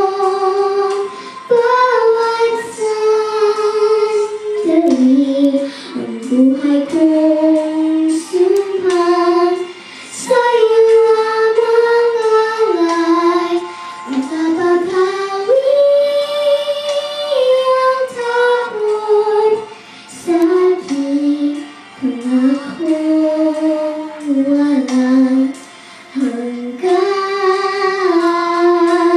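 A young girl singing a Filipino song solo into a handheld microphone, in phrases of long held notes with short breaks for breath between them.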